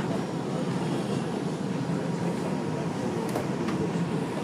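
R142 subway car running along the track, heard from inside the car: a steady rumble of wheels on rail, with a faint steady tone and a couple of brief clicks a little past three seconds in.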